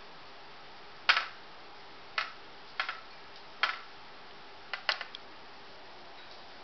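Sharp clicks of a steel cookie cutter knocking against a plate as bread is pressed out into rounds: six at uneven intervals, the last two in quick succession about five seconds in.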